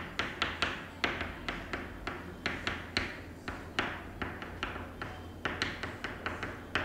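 Chalk tapping and scratching on a chalkboard as an equation is written: a run of short, irregular clicks, a few each second.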